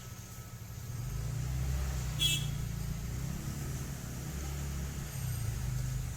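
Hot-air rework station blowing on a circuit board to desolder the TV's sound amplifier IC, a low rumble of moving air, with one short sharp click about two seconds in.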